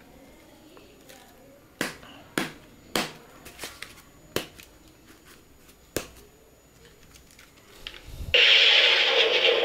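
Plastic Stormbreaker toy axe handled: a handful of sharp plastic clicks and knocks. Near the end the toy's electronic sound effect starts suddenly, a loud noisy blast from its small speaker, set off by shaking the axe.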